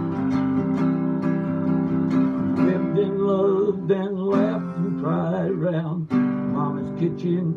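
Epiphone Hummingbird Pro acoustic guitar strummed in steady chords, with a man singing along. His voice wavers between notes through the middle, and the chord changes just after the six-second mark.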